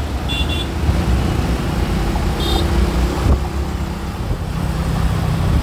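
Steady rumble of busy highway traffic, many cars and trucks passing. Short high-pitched beeps cut through twice, about a third of a second in and about two and a half seconds in.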